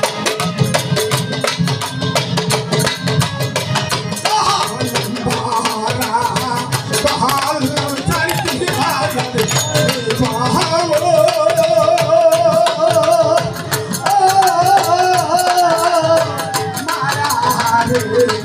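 Live Bengali folk music: a violin melody with vibrato over dhol drums and harmonium, driven by a fast, steady percussion rhythm.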